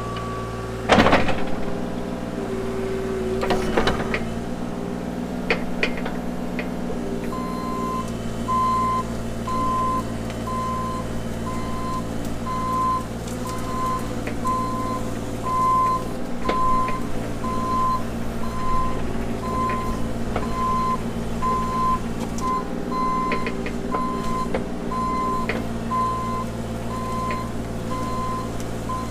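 Diesel engine of compact earthmoving equipment running steadily, with a couple of loud metal clunks in the first few seconds. From about a quarter of the way in, a backup alarm beeps about once a second as a machine reverses.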